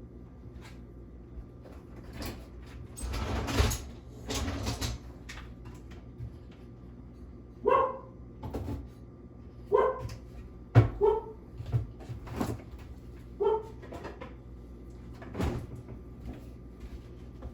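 A dog barks in short single woofs, about four times from around eight seconds in. Earlier there are a few seconds of rustling and scraping from kitchen handling, and a couple of sharp clicks fall between the barks.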